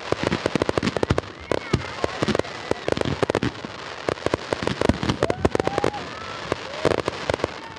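Aerial fireworks finale-style barrage: rapid, overlapping bangs and crackling from many shells bursting at once, several reports a second throughout.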